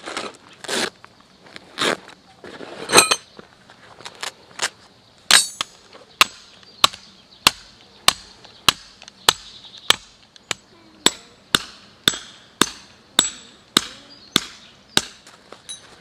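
A stuff sack rustling and metal pegs clinking, then a metal tent peg being hammered into stony ground: about seventeen even, sharp blows, nearly two a second, stopping near the end.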